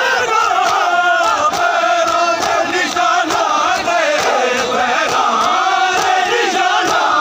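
A crowd of male mourners chanting a Punjabi noha lament together, over the slaps of hands on bare chests (matam) in a steady beat about twice a second.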